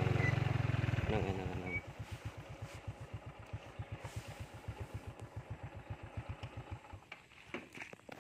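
An engine running with an even chug, loud at first, then dropping sharply about a second in and fading until it stops about seven seconds in.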